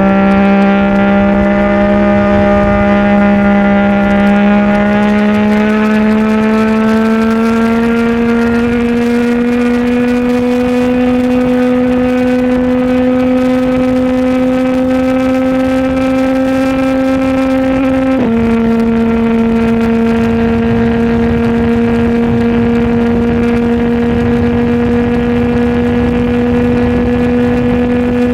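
CFMOTO 675 inline-three engine through a Burnout titanium full-system exhaust, pulling at a steady, slowly climbing pitch while riding, then dropping a step in pitch about 18 seconds in as the rider shifts up, and holding steady again.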